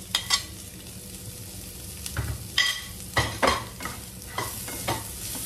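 Diced onion, beans and red bell pepper sizzling in oil in a non-stick frying pan, with a steel spoon clicking as the pepper is scraped in, then a wooden spatula stirring and knocking against the pan several times.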